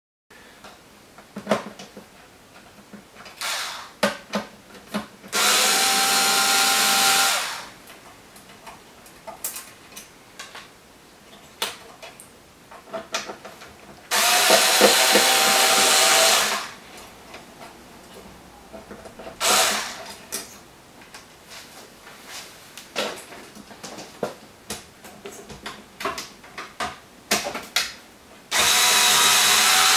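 Cordless electric screwdriver whirring in three runs of about two seconds each, backing screws out of an inverter's circuit boards, with clicks and knocks of parts and cables being handled in between.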